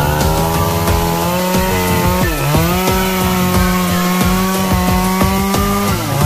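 Two-stroke chainsaw running at high revs as it cuts melaleuca wood. Its pitch sags briefly and recovers twice, about two seconds in and near the end.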